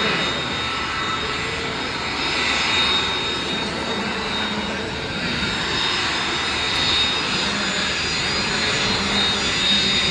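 Aircraft engines running steadily: a continuous broad rush of noise with thin, steady high-pitched whine tones over it, swelling gently in loudness now and then.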